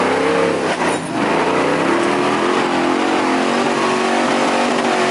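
Modified Jeep Wrangler YJ off-roader's engine revving hard as it climbs a loose dirt hill. The pitch wavers at first, dips briefly about a second in, then holds steady at high revs.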